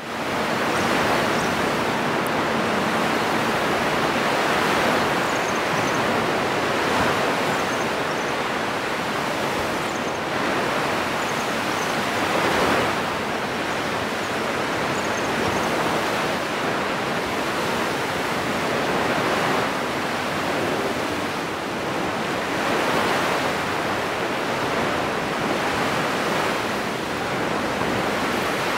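Ocean surf breaking and washing onto a sandy beach: a steady rushing that swells every few seconds.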